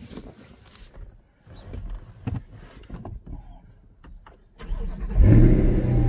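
Light rustling and clicks, then near the end a 2020 Corvette's 6.2-litre LT2 V8 cranks, fires and runs at a steady idle.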